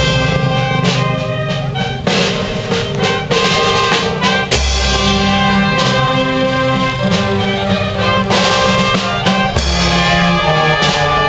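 Brass marching band playing: held brass notes with a sousaphone bass line, over cymbal crashes and bass and snare drums.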